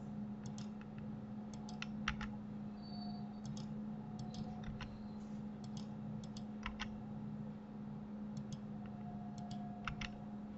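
Computer keyboard and mouse clicked in irregular, scattered taps, several coming in quick pairs, over a steady low hum.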